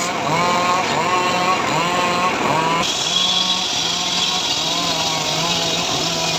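Engine-driven homemade sawmill (gergaji srekel) running, its engine note rising and falling every half second or so. About three seconds in, a higher hiss joins it.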